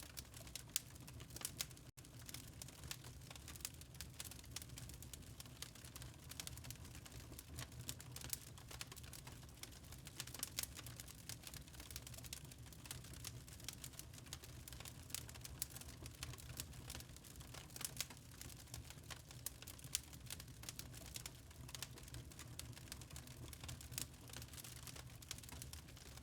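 Wood fire crackling steadily in a fireplace: a dense run of small irregular pops and snaps over a low rumble of flame. The sound drops out for an instant about two seconds in.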